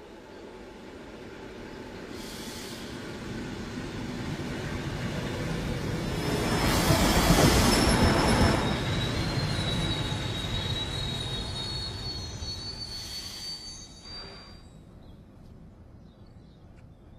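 A train moving through a station, its rumble building to a peak about seven seconds in and then fading away. From about nine to fourteen seconds in, the wheels give a high, steady metallic squeal on the rails.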